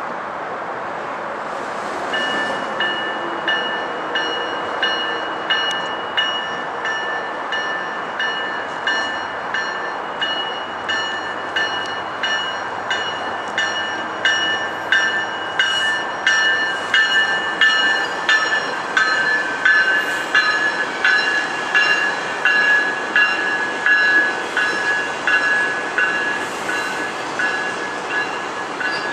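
GO Transit bi-level commuter train passing: its wheels click over the rail joints about twice a second, with a steady high-pitched ringing from the wheels and rails over the rush of the cars. It comes in about two seconds in and grows louder toward the middle as the coaches go by.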